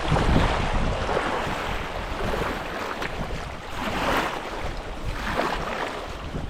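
Sea water washing and splashing in uneven surges, with wind buffeting the microphone as a low rumble.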